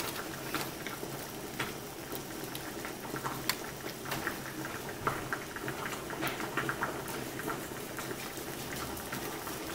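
Faint, irregular little clicks and crinkles as a knife tip pricks vent holes in egg-washed puff pastry on a crumpled aluminium-foil-lined tray, over a steady low hum.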